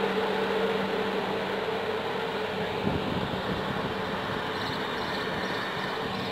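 Passenger train hauled by an electric locomotive pulling out of the station, the coaches rolling slowly past over a steady hum. A single knock about three seconds in.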